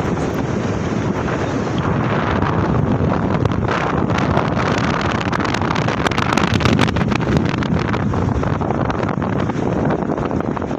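Strong storm wind buffeting the microphone in gusts, with crackling blasts, over the steady rush of waves at a high tide.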